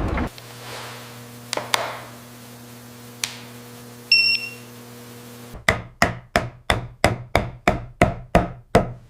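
A steady machine hum with a few scattered clicks, then a run of about ten sharp knocks, like hammer blows on wood, coming evenly at roughly three a second.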